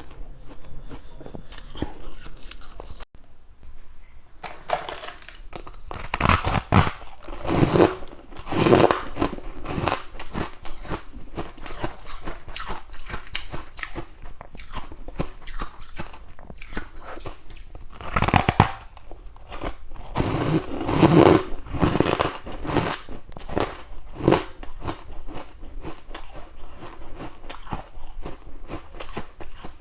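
Close-up biting and chewing of ice: a long run of crisp crunches with no pauses for talk, loudest in bursts of bites around a quarter of the way in, just past the middle, and again a little after.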